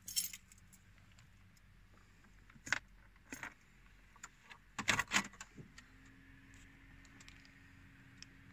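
Renault Laguna 2 keycard, with a bunch of keys hanging from it, clicking and jangling as it is pushed into the card slot on the centre console, the loudest clicks about five seconds in. After that a faint steady hum sets in as the car's electrics switch on, the engine not yet started.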